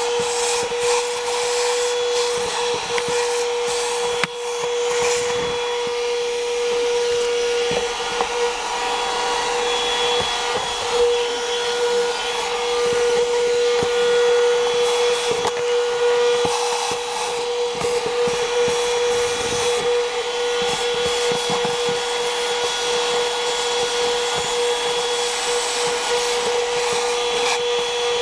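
Worx 12V handheld car vacuum running with a steady whine, with scattered clicks and rubbing.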